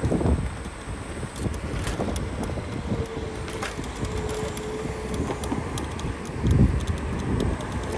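Scooter ride: low rumble of the wheels on the road and wind on the microphone, with scattered rattling knocks over bumps. A steady whine comes in for about two seconds in the middle, and a heavier jolt about six and a half seconds in.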